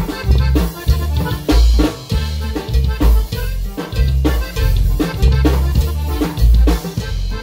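A dance band playing loud music with a steady beat on a drum kit under deep bass notes.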